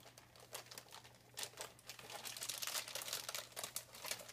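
Clear plastic wrapping crinkling and crackling as it is handled and unwrapped by hand, sparse at first and growing busier from about halfway through.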